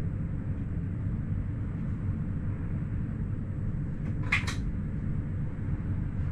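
Steady low rumble of a Wynental- und Suhrentalbahn ABe 4/12 'Saphir' railcar running along the line, heard from the driver's cab. About four and a half seconds in, a short sharp double click.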